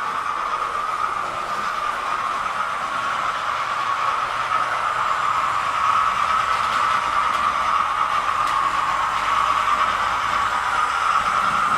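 Model trains running on a large model railway layout: a steady whir of small motors and wheels on track.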